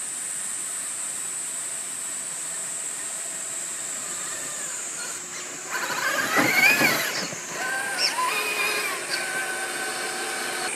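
Electric motor and gearbox whine of an Axial SCX6 1/6-scale RC rock crawler, over a steady high hiss. About six seconds in the whine gets louder, rising and then falling in pitch as the throttle is worked, and then settles into a steadier tone.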